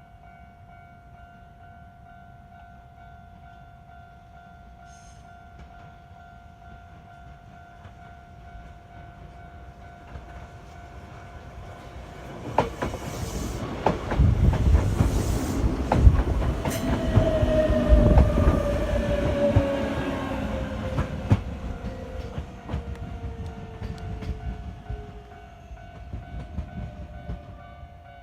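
Level crossing warning signal sounding steadily as a Yoro Railway 7700 series electric train approaches and passes. Its wheels rumble and clack over the rail joints, loudest about halfway through. A whine falls slowly in pitch as the train goes by, then the train fades away.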